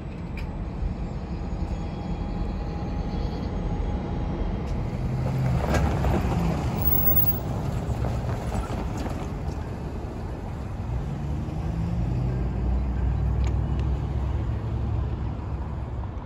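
Road vehicles passing close by: a low engine rumble with tyre noise that swells twice and fades between.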